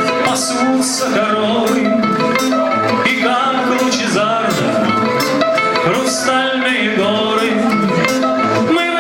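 Live band playing a song, with guitar and a wavering sung or melodic line over it.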